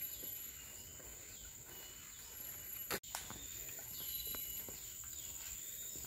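Tropical forest ambience: insects drone in a steady high-pitched tone, with short bird calls over it and faint ticks. A sharp click comes about halfway through.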